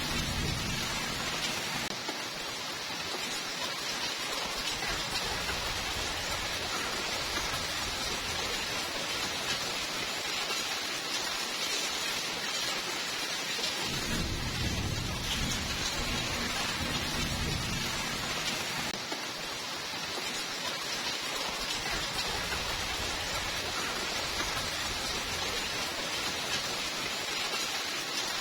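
Steady heavy rainfall, with low rumbles of thunder near the start and again about halfway through.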